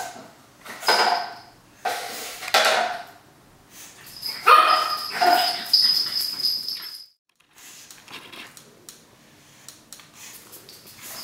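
Pug puppy barking and yapping in play: short barks about a second in and again at two and a half seconds, then a louder run of yaps around four to five seconds in. Light scattered taps follow in the quieter second half.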